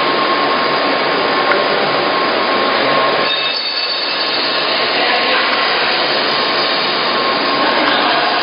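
Dairy processing plant machinery running: a loud, steady noise of pumps and motors with a faint steady whine in it.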